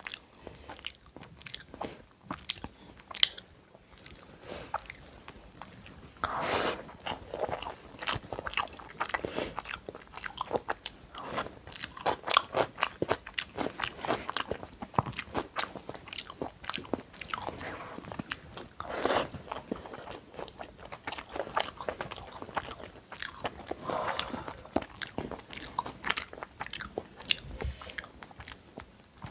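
A person chewing and biting through chicken biryani with salad, close to the microphone: continuous chewing with frequent crunchy bites and small mouth clicks, a few bites louder than the rest.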